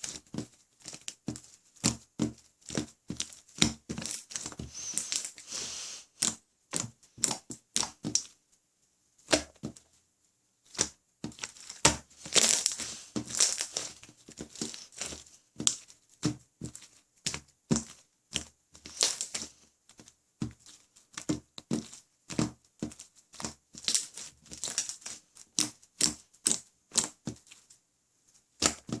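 Clear jiggly slime being squished and pressed by hand, giving a steady run of quick wet clicks and pops, several a second, with a few longer crackling stretches as it is pulled and folded.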